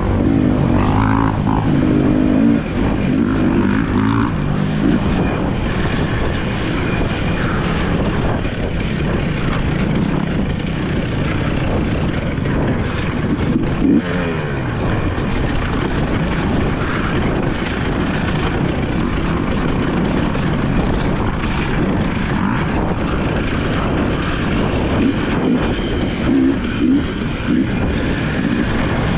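Dirt bike engines running and revving on an off-road racecourse, their pitch rising and falling with the throttle. About halfway through, one engine's pitch falls away sharply.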